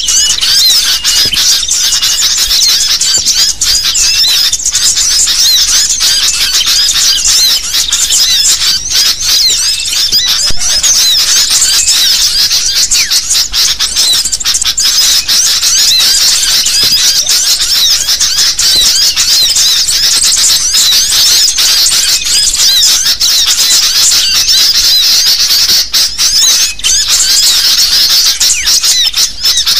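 Sooty-headed bulbuls (kutilang) calling in a noisy, excited chorus: many short, high calls overlapping without a break.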